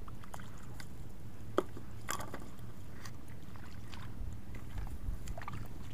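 Wet squelching and small splashes of feet and hands moving in shallow mud and water, with scattered sharp clicks, one louder than the rest about a second and a half in, over a low steady rumble.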